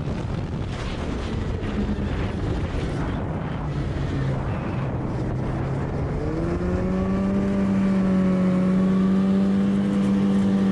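2006 Yamaha Apex snowmobile's four-stroke four-cylinder engine off the throttle as the sled slows from speed, with wind rushing over the microphone. About six seconds in the engine note rises a little and then holds at a steady pitch as the sled rides along slowly.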